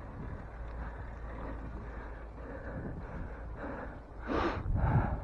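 Dutch city bike rolling fast down a dirt woodland trail: a low steady rumble of tyres and wind, with the rider breathing hard. A louder noisy rush comes about four seconds in.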